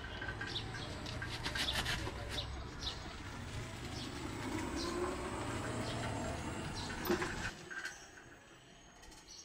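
Birds chirping and cooing over a steady low outdoor rumble; the rumble cuts off suddenly about seven and a half seconds in.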